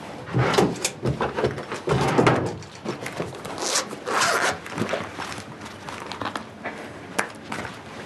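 Rustling, clicks and light knocks of clothing and small objects being handled, with a zip-like rasp among them. The sounds come thick in the first half and thin out after about five seconds.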